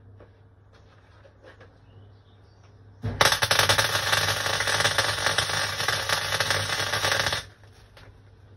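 Gasless flux-core MIG welder arc crackling and spitting through one continuous weld of about four seconds, starting about three seconds in and cutting off suddenly. A faint low steady hum runs under it.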